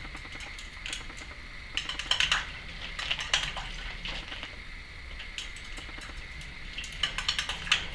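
Timneh African grey parrot bathing in her water bowl: splashing and clinks against the bowl, in clusters about two seconds in, around three seconds in, and near the end.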